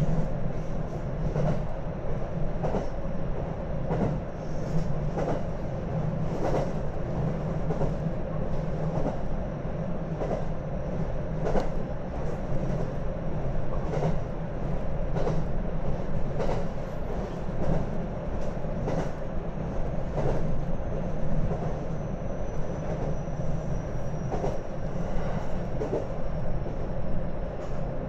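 Train running, heard from inside the carriage: a steady low rumble with a regular clack of the wheels over rail joints about every second and a quarter.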